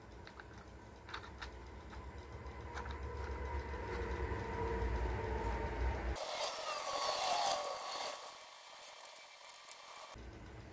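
The two small screws of a Magpul MagLink magazine coupler being turned in with a screwdriver: faint clicking, scraping and handling of the plastic parts. The sound changes abruptly about six seconds in, becoming thinner and hissier.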